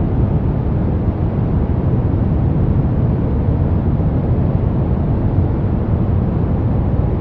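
Steady brown noise: a soft, even rumbling hiss, strongest in the low end and rolling off toward the highs, without change.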